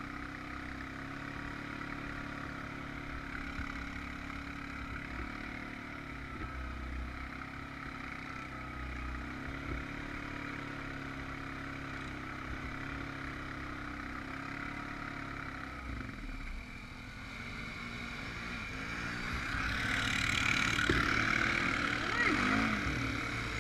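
Honda Rancher 420 ATV's single-cylinder four-stroke engine running steadily at low revs, then revving up and getting louder near the end.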